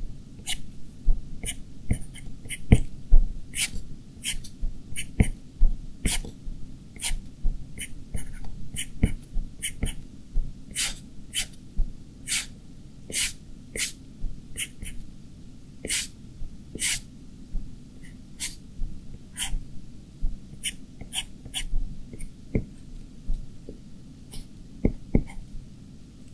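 Apple Pencil tip tapping and clicking on the glass screen of an iPad Pro while drawing: sharp, irregular ticks, roughly one or two a second, over a low steady hum.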